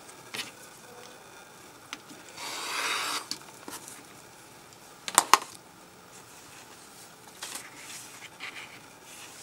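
Fabric and cutting tools handled on a cutting table: a rustling swish about two and a half seconds in, then a sharp double clack about five seconds in, the loudest sound, with a few lighter taps around it.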